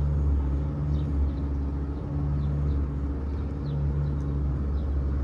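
Motorboat engine running steadily: a low, continuous drone.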